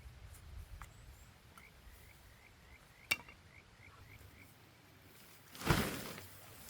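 Quiet streamside camp ambience: a low, steady rush of water under a run of faint high chirps, about four a second. There is a single sharp knock about three seconds in, and a brief, louder rustling swell near the end.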